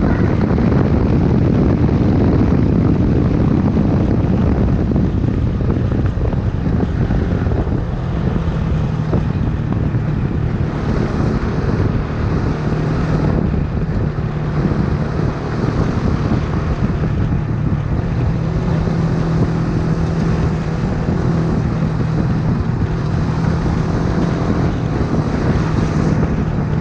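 Honda CBX 250 Twister's single-cylinder four-stroke engine running steadily, its engine note holding at an even pitch through the second half, with wind noise on the microphone.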